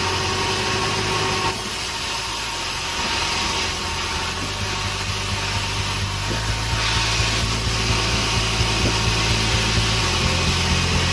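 A sawmill running as it cuts a large salam log, a steady machine hum whose pitch shifts in steps a few times as the load changes, with a faint rapid ticking in the second half.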